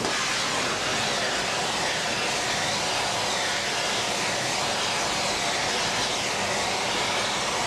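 Glassblower's gas torch flame running steadily with a continuous rushing hiss, heating a tile cap placed over a glass-to-metal seal as a small oven so the glass can cool slowly without cracking.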